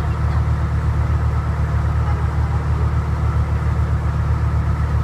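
Tour boat's engine running steadily underway on a river: a loud, low drone with a regular throb.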